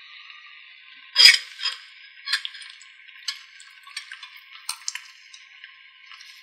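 Marinated beef pieces squeezed wet in a gloved hand and dropped into a pan, with small clicks and clinks against a glass bowl over a faint steady hiss; the loudest is a wet drop about a second in.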